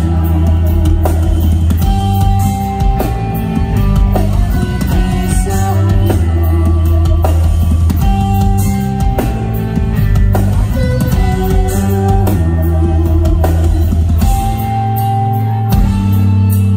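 Metal band playing live through a PA: heavy bass, guitar and drums with a singer's voice, recorded from the crowd.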